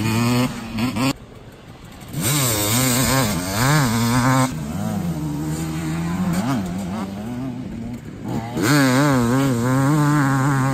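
Two-stroke motocross bikes riding over the jumps, their engines revving up and down as the throttle is worked. The engine sound drops away for about a second near the start, then comes back strongly.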